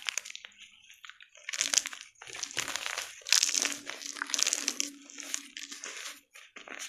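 Gym chalk being crushed and crumbled: a few faint crackles, then from about a second and a half in a run of crisp crunching bursts, one after another.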